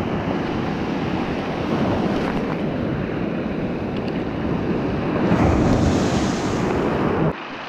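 Surf washing up over a pebble beach, with wind buffeting the microphone. A wave surges louder and hissier about five seconds in, and the sound drops away suddenly near the end.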